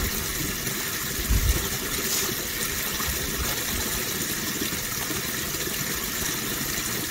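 Steady rush of running water, with a brief low thump about a second and a half in.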